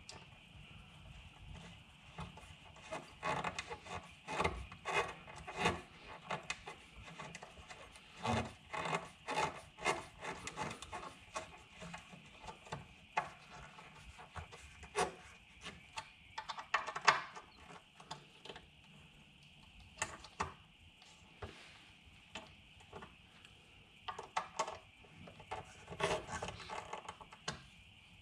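Irregular clicks, taps and rubbing of hand work on metal and plastic parts, coming in clusters with short pauses, over a faint steady hiss.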